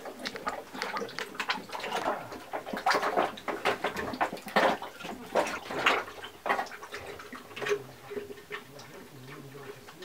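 A goat feeding with its muzzle in a plastic bucket makes a quick, irregular run of wet clicks and knocks against the plastic, thinning out toward the end.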